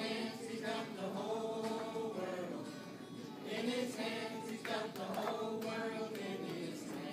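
A small group of girls singing a Sunday school song together in long, held notes.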